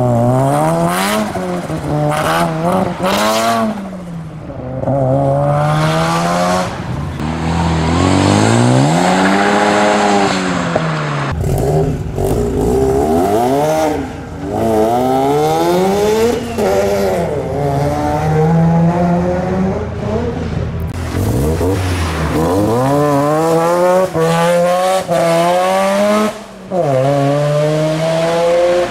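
Mazda rotary engines revving hard and accelerating away, one car after another, the engine note climbing and dropping again and again through the gears, with abrupt switches to a different car about 11 and 21 seconds in.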